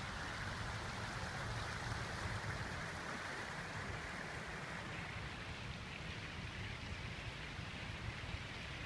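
Steady rush of flowing river water, with an irregular low rumble underneath.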